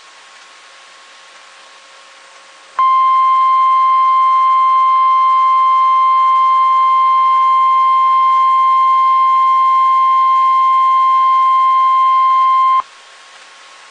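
Emergency Alert System tornado-warning broadcast: faint hiss, then about three seconds in the weather-radio warning alarm tone, a single loud steady tone held for about ten seconds. It cuts off abruptly back to hiss, signalling that a tornado warning is about to be read.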